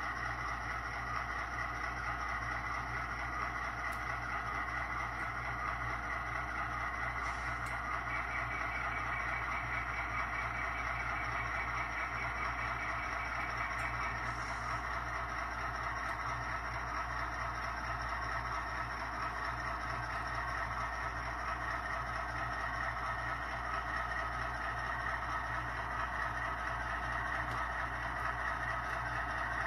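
Sound-decoder recording of an EMD SW1 switcher's diesel engine, played through a model locomotive's small onboard speaker as the model runs slowly with its cars. It runs steadily, with a thin high tone joining in for a few seconds about a third of the way through.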